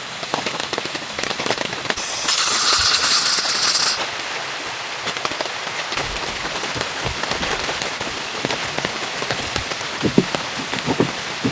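Rain falling, a dense patter of many small drops ticking on a surface. About two seconds in, a louder hiss lasts about two seconds, and a few heavier drops knock near the end.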